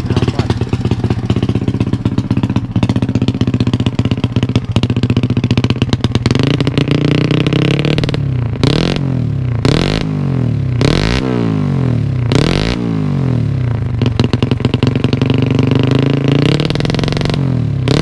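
Single-cylinder four-stroke Yamaha Jupiter engine in a custom dirt bike, running through an aftermarket slip-on exhaust: it idles, then from about six seconds in is revved in a series of quick throttle blips. The engine is in a medium, not extreme, tune.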